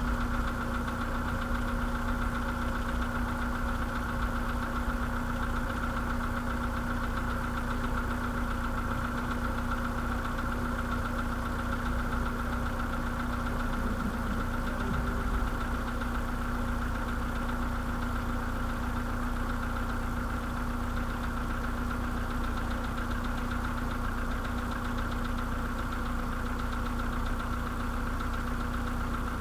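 The 1.6-litre four-cylinder petrol engine (CFNA) of a 2013 VW Polo sedan with 192,000 km, idling steadily with a knock. The owner takes the knock for piston knock.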